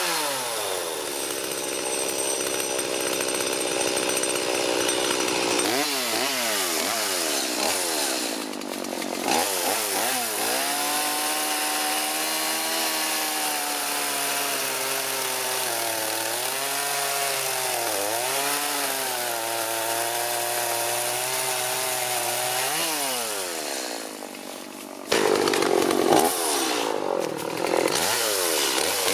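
A Stihl MS180C two-stroke chainsaw engine running on its test run with a newly fitted carburetor. It is revved up and down again and again, the pitch rising and falling. Near the end there is a sudden louder stretch.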